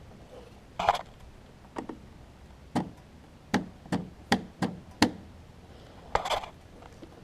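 A series of about nine sharp clicks and knocks at irregular intervals, some in a quick run about three to five seconds in, from work on a riding mower's electrical parts.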